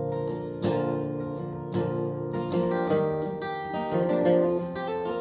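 Acoustic guitar with a capo, strummed and picked chords ringing on between sung lines, with a fresh attack about every second.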